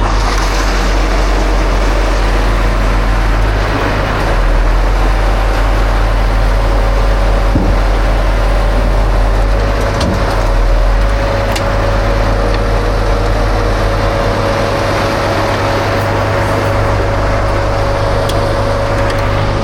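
Engine running steadily at a constant speed, with a steady hum under it.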